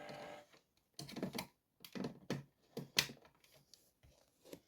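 Light, irregular clicks and taps of hands on a model railway controller and track while the direction is being changed, after the locomotive's small electric motor hum stops in the first half second.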